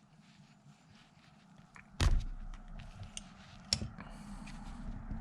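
Small clicks from handling the parts of a hydraulic valve lifter, then a sudden loud knock about two seconds in and a smaller one near four seconds.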